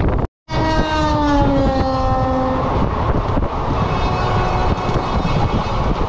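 A moving train's steady rumble with a train horn sounding over it for about two seconds, its pitch sliding slowly down; the sound drops out for a moment just before the horn starts.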